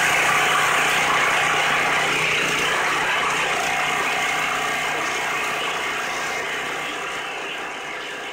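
Small gas engine of a hydraulic log splitter running steadily, fading out gradually over the last few seconds.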